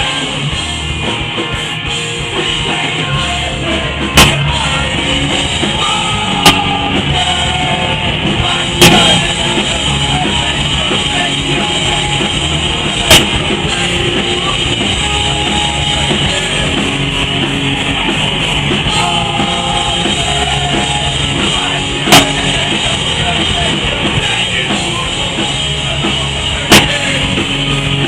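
Rock band playing with drums and electric guitar in a heavy, dense mix, with about six sharp loud hits standing out at irregular moments.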